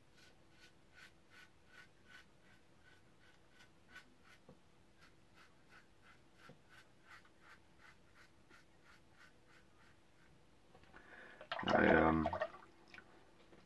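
Safety razor scraping through stubble and shaving lather in short, even strokes, about three a second, then a brief louder burst of noise about twelve seconds in.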